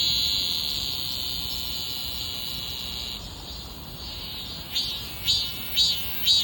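Cicada singing: a long, continuous high buzz that slowly fades over about three seconds. It then breaks back into rhythmic pulsed calls, about two a second, near the end.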